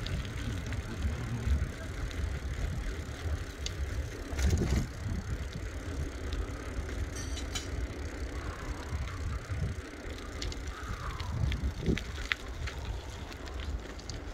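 Wind buffeting a phone's microphone: an uneven, gusty low rumble with a few faint clicks.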